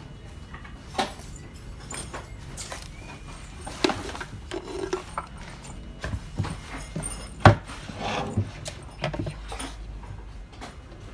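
Irregular short clicks and knocks, like things being handled, the loudest about seven and a half seconds in.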